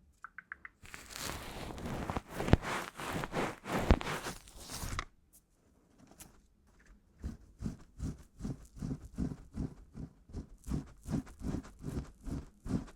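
ASMR trigger sounds made close to the microphone: a few seconds of rustling with two sharp clicks, then after a short pause steady soft tapping about three times a second.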